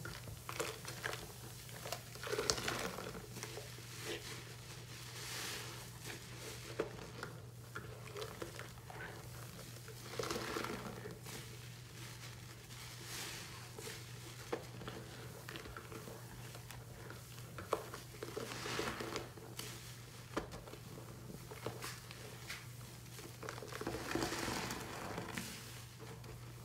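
Soap-loaded kitchen sponge squeezed and scrubbed by hand in a sink full of suds: wet, crackling squelches of foam that swell up every few seconds, with small pops in between. A faint steady hum runs underneath.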